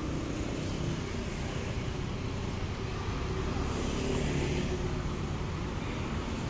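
Urban street traffic: cars and motorbikes driving past at low speed, a steady hum of engines and tyres on asphalt, swelling a little about four seconds in.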